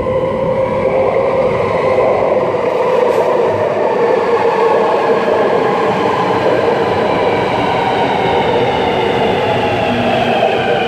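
Sydney Metro Alstom Metropolis driverless train arriving out of the tunnel and running in close alongside. Its wheel and running noise carries several whining tones from the electric traction equipment, which fall slowly in pitch as the train brakes for the platform.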